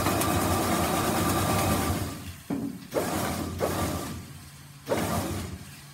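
Cattle feed being scooped and poured into a bucket: one long rattling pour, then four shorter scoops.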